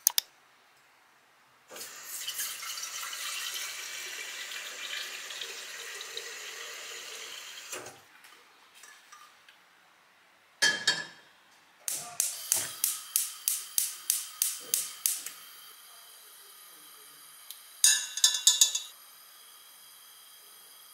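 Tap water running into a glass kettle for about six seconds. Then a knock as the kettle goes down, followed by a gas hob's spark igniter clicking about four times a second, with another quick run of clicks near the end.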